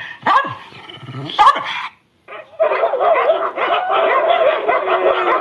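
Recorded dog sounds played through a speaker: a few short yelps in the first two seconds, then, after a brief pause, a continuous stretch of dog vocalising with a wavering pitch.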